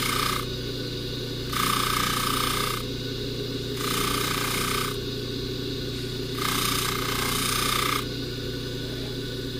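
Polishing buffer motor running steadily while a gold chain is pressed against the spinning buffing wheel in four strokes of about a second each, each giving a rasping hiss with a ringing tone.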